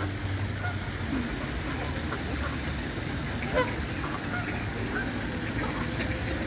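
A mixed flock of Canada geese and mallards calling on the water: scattered short honks and quacks, one louder call about three and a half seconds in, over a steady low background rumble.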